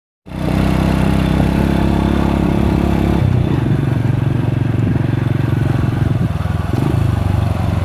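Motorcycle engine running steadily while riding, heard from on the bike. Its note drops lower about three seconds in.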